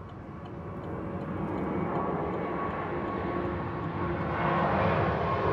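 Aircraft engine noise growing steadily louder, with a couple of steady whining tones over a rushing sound.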